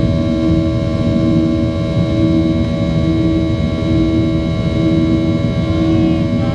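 Cabin noise of a Boeing 737-800 in the climb after takeoff: the steady rush of air and drone of its CFM56 engines heard from inside the cabin, with several constant whining tones over it and a low hum that swells and fades about once a second.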